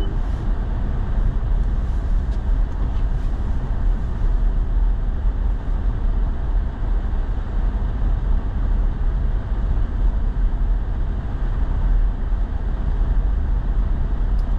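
Steady engine and tyre noise from inside a truck cab while driving, an even low rumble.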